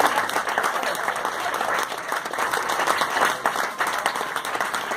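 Audience applauding, many hands clapping in a dense, steady patter.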